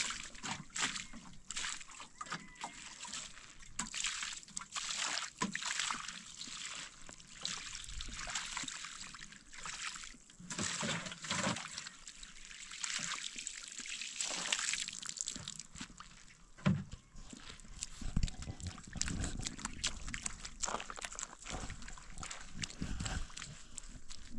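Water poured from a plastic jerrycan splashing and trickling over a wet rug being washed by hand. A sharp knock comes about two-thirds of the way through, followed by dull irregular thumps as the wet rug is trodden underfoot.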